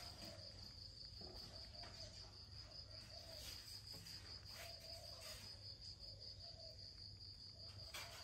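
Near silence with a faint, steady high-pitched insect trill running on, like a cricket.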